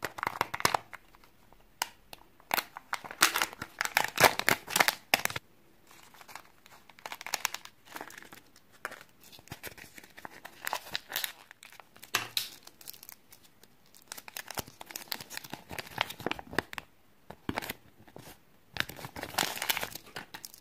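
Hands peeling the foil seals off Kinder Joy plastic egg halves and crinkling plastic wrapping, in irregular crackly bursts with short pauses between them.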